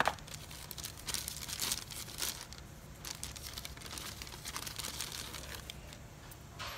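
Thin plastic bag crinkling and rustling in irregular bursts as new piston rings are handled and pulled out of it by hand.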